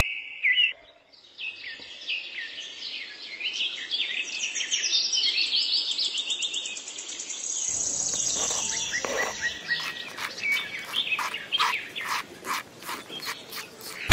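Small birds chirping and trilling in quick high notes, with a run of sharp ticks in the last few seconds.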